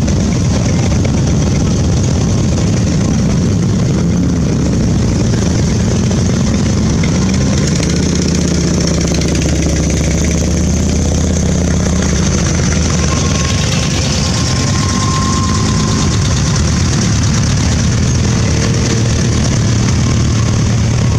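A procession of motorcycles and a custom trike rolling slowly past at low revs, their engines running in a loud, steady, overlapping mix with the pitch shifting gently as bikes go by.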